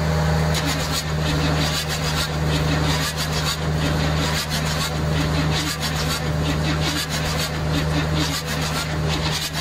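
Cold GM 6.2-litre diesel V8 cranking on its starter through open straight-pipe headers while ether starting fluid is sprayed into its intake. It keeps turning over without starting. A steady low engine drone runs under it.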